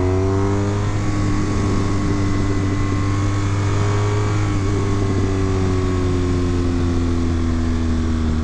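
Motorcycle engine running while the bike is ridden. The engine note climbs over the first few seconds as it speeds up, then slowly falls as it eases off, over a steady low rumble.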